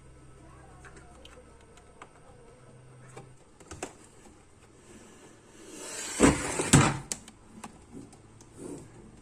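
Handling noise on a repair bench while a replacement IC is fitted to the amplifier board: scattered light clicks and taps, then a louder rustling scrape with two sharp knocks about six to seven seconds in.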